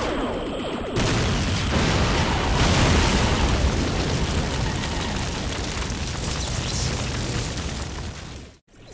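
Sound-effect explosion about a second in, as a vehicle is hit, followed by a long noisy tail that slowly fades and cuts out just before the end.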